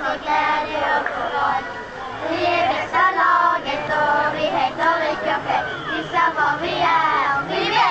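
A group of young girls singing a song together.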